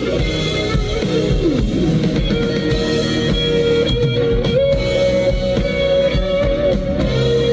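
Small acoustic guitar played live on stage as part of a song, with a melody line held in long notes above the guitar.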